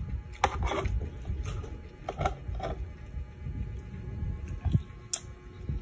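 Close-miked eating sounds: chewing, with a spoon clicking and scraping against a glass bowl half a dozen times.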